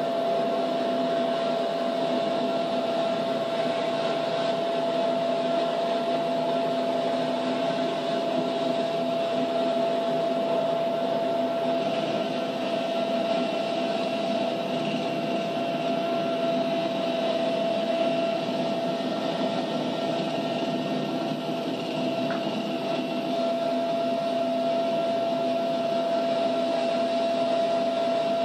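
Steady cabin noise of an RAF search-and-rescue helicopter in flight: a constant whine over an even engine and rotor hum, played back from old video through a TV speaker.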